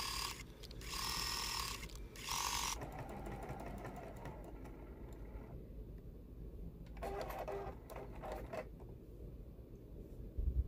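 Sewing machine stitching in several short runs with pauses between them, needle going rapidly up and down while fabric and batting are free-motion quilted with a free-motion foot. There is a soft low thump near the end.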